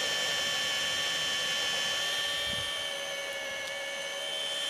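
Ryobi HP brushless hammer drill, in drill mode on speed one, boring a 1.5-inch speed bore bit into a wooden timber: a steady motor whine under load. There is a brief low thud about two and a half seconds in.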